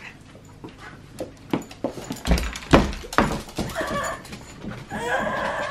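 Shih Tzu getting excited: short knocks and a heavy thump as it scrambles on the wooden floor, then a drawn-out whine near the end.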